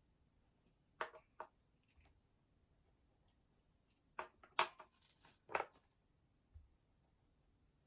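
A few light clicks and knocks of small hard objects being handled on a desk: two about a second in, then a quick cluster of several about four to six seconds in.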